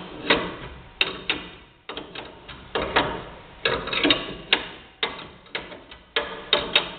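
Hand tools working on the car's bare steel chassis and suspension: a string of irregular sharp clicks and knocks, each dying away quickly.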